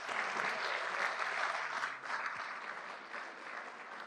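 Audience applauding, loudest in the first two seconds and slowly tapering off.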